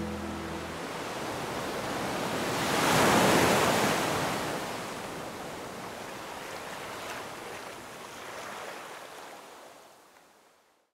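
Ocean surf washing on a beach: a wave swells and breaks loudest about three seconds in, then the surf fades away to silence near the end. The last held note of music dies out in the first second.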